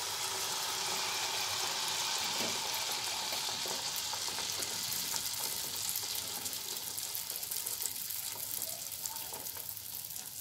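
Malpua batter of flour and semolina sizzling as it deep-fries in hot oil in a pan, just after being poured in. The sizzle is strongest at first and eases gradually over the seconds that follow.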